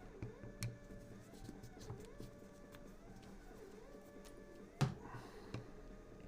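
Faint clicks and taps of small parts being handled while an airsoft gas magazine is taken apart, with one sharper click about five seconds in.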